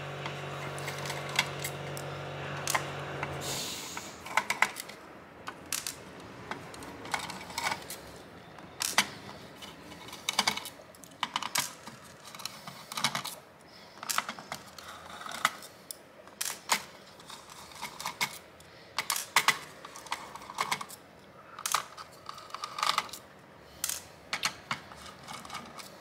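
Small Phillips screwdriver undoing the screws of a graphics card's metal backplate: irregular light clicks and ticks of the tip in the screw heads and of loose screws and the tool against the metal. A steady low hum runs underneath at first and cuts off suddenly about four seconds in.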